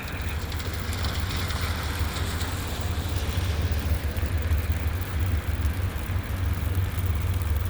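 Sleet and rain falling as a steady hiss, over a constant low rumble.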